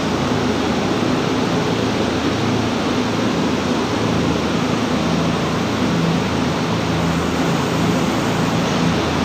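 Steady rushing noise with a low mechanical hum, unchanging throughout.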